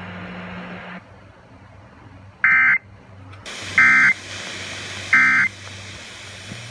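Emergency Alert System end-of-message data tones: three short, high-pitched screeching bursts about a second apart, the digital code that closes the alert. They sound over a low steady hum.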